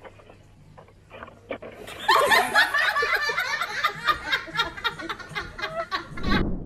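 About two seconds of near-quiet with a faint steady hum, then a person laughing hard in rapid, continuous bursts.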